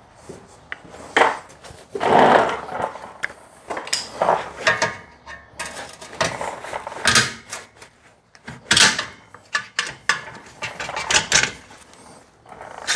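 Handling noises as work gloves are pulled on: irregular rustling and scuffing with scattered short knocks.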